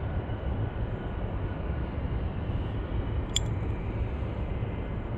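A single sharp metallic click about three seconds in, from a fixed-spool carp reel's bail arm being flipped open ready to cast, over a steady low rumble.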